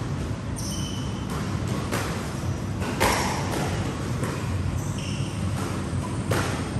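Squash ball being struck by rackets and hitting the walls during a rally: a series of sharp hits about every half second to a second, the loudest about three seconds in. Short shoe squeaks on the wooden court floor come between the hits.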